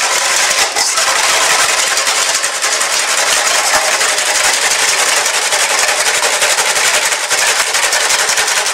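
Wire whisk beaten fast by hand in a bowl, a rapid, steady clatter of strokes, whipping double cream that is starting to thicken.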